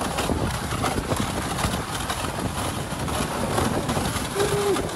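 Dog sled running over a packed snow trail: a steady scraping hiss of the runners on snow with wind on the microphone. About four seconds in, one short hoot-like call.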